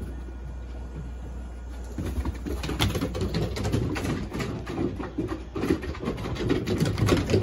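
Puppies playing: short low grunts and growls, with claws clicking and scrabbling on wooden deck boards, starting about two seconds in.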